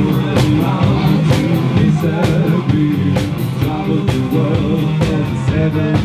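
Live rock band playing: electric guitar, bass guitar and drums with a steady beat.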